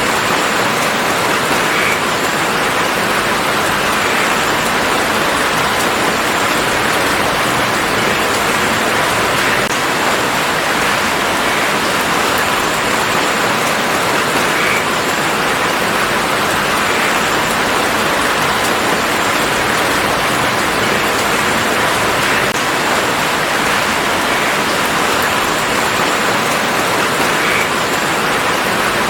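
Steady rain falling in a garden: an even hiss of rainfall with faint scattered drop ticks.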